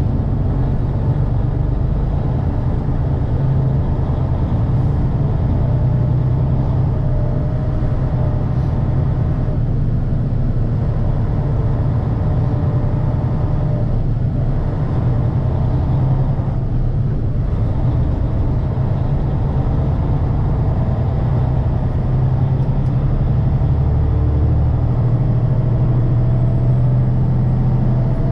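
Delivery truck on the road: a steady low drone of engine and road noise.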